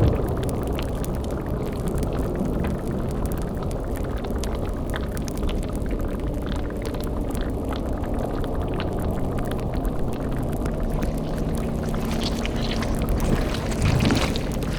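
Dark fantasy ambience sound bed: a bubbling, boiling cauldron with fire crackles over a low rumbling drone, swelling briefly near the end.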